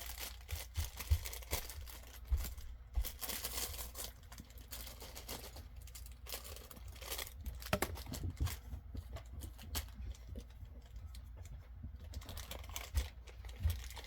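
Packaging being handled and torn open, with irregular crinkling, rustling and small clicks as an enamel pin is unwrapped, over a low steady hum.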